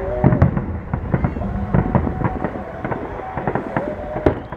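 Fireworks display: aerial shells bursting one after another in quick, irregular succession, several bangs a second.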